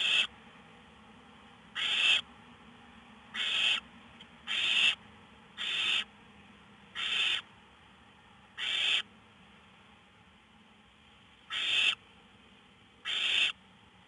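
Barn owl owlets giving their hissing, snore-like begging calls: nine short rasping hisses about a second or so apart, with a longer pause about two-thirds of the way through.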